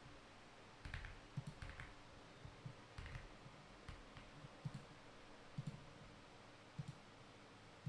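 Faint, scattered clicks, a few at a time with gaps of a second or so between, over a quiet background.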